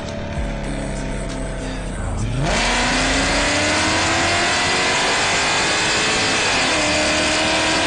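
Supercharged V8 engine of a Mercedes W211 E55 AMG, running steadily at first. About two and a half seconds in it gets louder and its pitch climbs steadily for about four seconds as the car accelerates, then dips slightly and holds.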